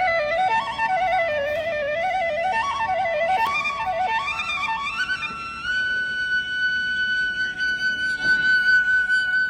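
Instrumental background music: a solo melody winding up and down with quick ornaments, then one long held high note from about halfway through.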